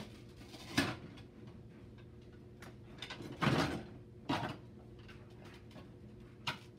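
Toy food pieces knocking and scraping on a toy play kitchen's stovetop as they are handled, a handful of separate clatters, the longest and loudest about halfway through.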